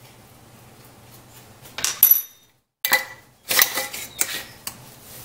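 Metal kitchen utensils clinking and clattering as dry mustard is measured into the mixing bowl: one sharp ringing clink about two seconds in, a brief dead silence, then a run of lighter clicks and clatter.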